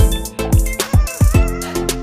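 Background music with a steady drum beat, a kick drum about twice a second under sustained melodic notes.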